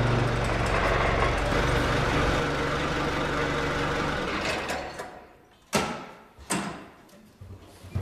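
Forklift engine running steadily, then stepping down and dying away about four to five seconds in. It is followed by two sharp clanks about a second apart and a few lighter knocks near the end.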